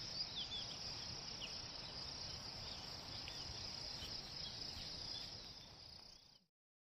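Steady high-pitched chorus of insects, with a few short chirps over it in the first second or two. It fades out about six seconds in.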